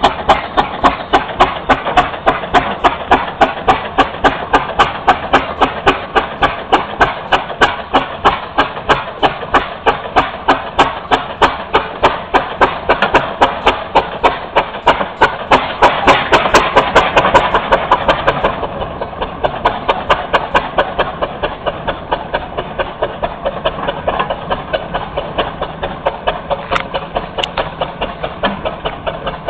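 Garrett steam traction engine working under load uphill, its exhaust chuffing at an even beat of about two and a half a second. The beats are a little softer for the last ten seconds or so.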